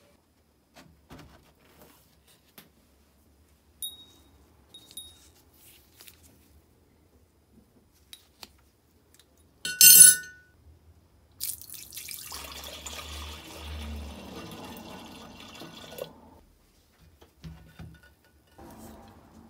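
A small metal part drops into an empty glass vase with one sharp, ringing clink, after a few faint light clinks. Water then pours into the glass for about four seconds, running and splashing, and stops suddenly.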